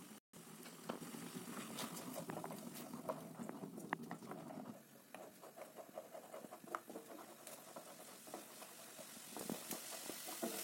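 Spatula stirring and scraping a poppy-seed and melon-seed spice paste as it fries in oil in a kadhai: faint sizzling with many small scattered ticks and scrapes.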